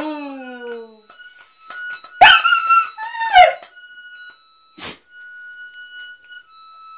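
A puppy howling along to music: a howl sliding down in pitch and trailing off in the first second, then a louder wavering howl about two seconds in. Between and after the howls, steady held instrument notes sound, with a sharp click a little before the five-second mark.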